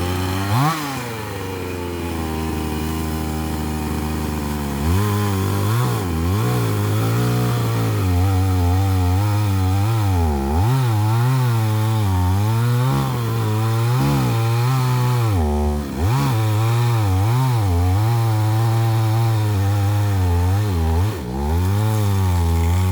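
Chainsaw engine cutting a tree. It revs once briefly, runs lower for about five seconds, then runs at high speed with its pitch repeatedly dipping and recovering as the chain works through the wood, briefly dropping off twice near the end.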